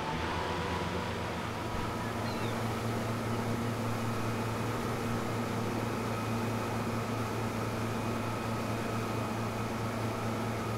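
Boat engine running steadily while the boat is underway, an even drone with a faint high whine over it.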